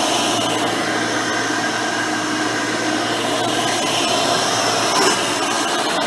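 Hoover Elite 600 upright vacuum cleaner, running on a modern 7-amp motor with a 20-blade fan, vacuuming with a steady whine and rush of air. There is a brief small swell in loudness about five seconds in.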